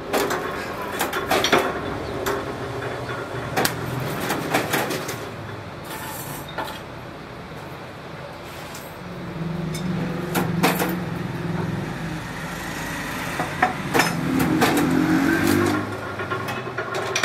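Stainless steel wire being spot-welded on a resistance welding machine: repeated sharp clicks and metal clanks as the electrodes close on the wire, with a low buzzing hum at times.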